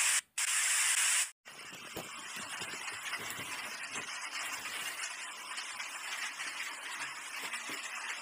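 Loud television static hiss for just over a second, with a brief dropout, then cutting off. It is followed by a steady, quieter hiss with scattered faint knocks.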